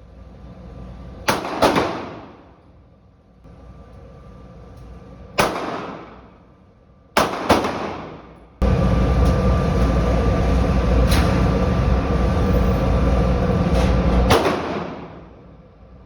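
Pistol shots with echoing tails, fired singly and in quick pairs with pauses between. About halfway through, a loud steady rumbling noise sets in for several seconds, with shots still heard through it, and stops at a final shot.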